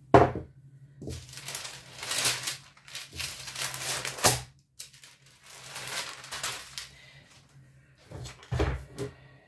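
A knock at the start, then parchment baking paper rustling and crinkling in two long stretches as a sheet is lifted and peeled back off thinly rolled dough.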